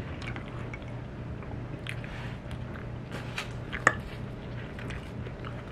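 Eating sounds: chewing and small clicks of cutlery against dishes, over a steady low hum, with one sharper click about four seconds in.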